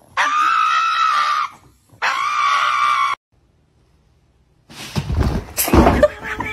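Pug screaming in protest: two long, high-pitched wailing cries. After a pause, a run of thumps and scuffling.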